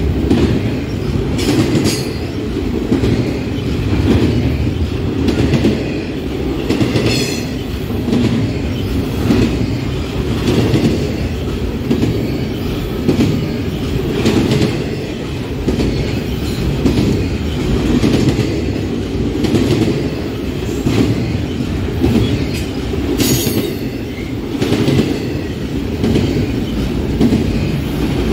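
Freight train cars rolling past, their wheels clattering over the rail joints in a steady rhythm, with a couple of brief high-pitched wheel squeals.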